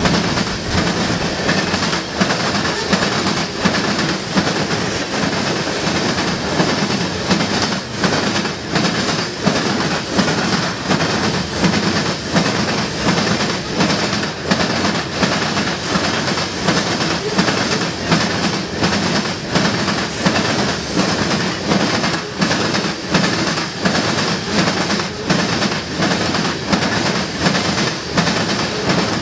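Freight train of covered hopper cars crossing a railroad diamond at speed: the steel wheels pound over the crossing rails in a loud, steady, rapid clickety-clack, the impacts coming in evenly repeating groups as each car's trucks pass.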